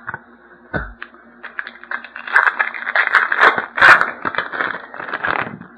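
Foil trading card pack wrapper being torn open and crinkled, a dense run of crackling and scraping that lasts about four seconds, after a single soft knock about a second in.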